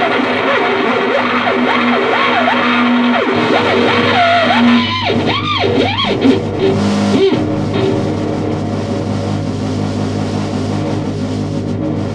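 Theremin run through a chain of distortion and effect pedals: wobbling, swooping pitch glides over a dense, harsh buzzing drone. About seven seconds in the glides stop and only the buzzing noise drone goes on.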